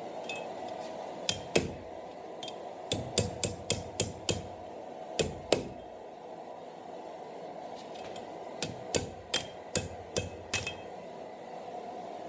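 Blacksmith's hammer striking steel on an anvil, in short runs of two to seven blows with pauses between, each blow ringing briefly. A steady hiss runs underneath.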